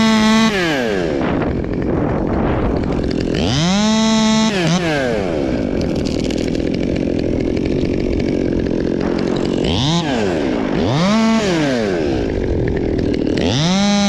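Two-stroke top-handle chainsaw cutting birch limbs. The engine runs at a high full-throttle pitch, drops lower and rougher while the chain is in the wood, climbs back briefly about four seconds in and again around ten to eleven seconds, and returns to full revs near the end.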